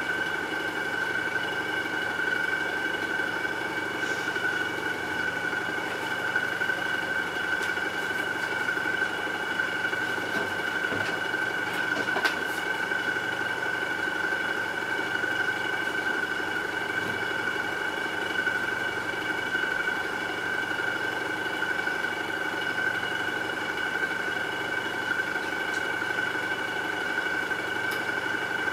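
A small electric motor humming steadily, with a steady high whine over the hum.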